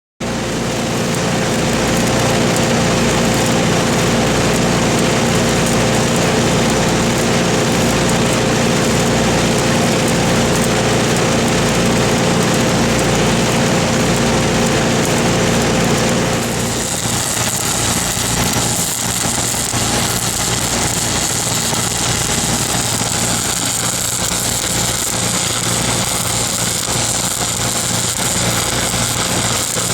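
Stick-welding arc hissing and crackling over a running engine-driven welding machine. About 16 seconds in the sound changes: the low steady tones fall away and a higher sizzle takes over.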